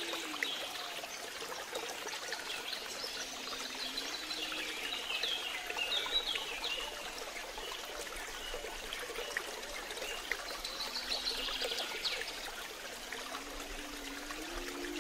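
Water trickling steadily, with scattered short high chirps and a low rising-and-falling tone that comes back every few seconds.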